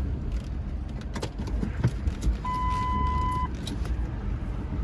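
Car driving, heard from inside the cabin: a steady low road and engine rumble with a few light clicks and knocks. A single electronic beep lasts about a second near the middle.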